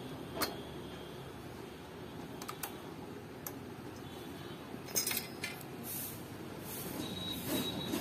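Socket wrench and extension working a bolt on a Honda EU65is generator: scattered light metallic clicks and clinks of the tool against the bolt and sheet-metal casing, a small cluster of them about five seconds in, over a steady low hum.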